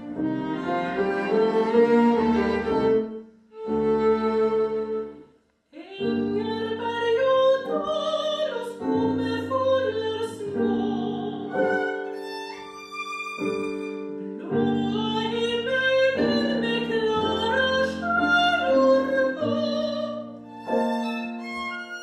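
A soprano sings a Swedish art song, accompanied by viola, cello and piano. The music stops briefly about five seconds in, then starts again.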